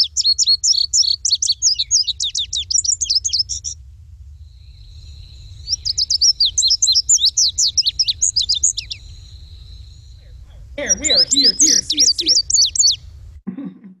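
Recorded indigo bunting song played back: three bouts of high, quick, emphatic paired notes with short pauses between them.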